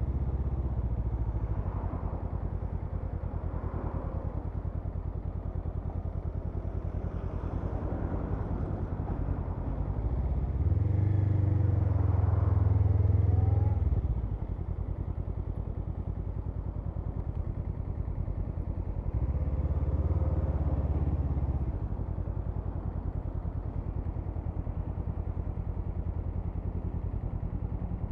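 Honda CMX500 Rebel's parallel-twin engine running under way, a steady low pulse that grows louder twice for a few seconds, about ten seconds in and again near twenty seconds.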